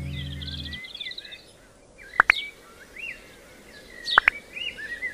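Birds chirping, with a loud two-note rising whistle call heard twice, about two seconds apart. Background music with low held notes stops about a second in.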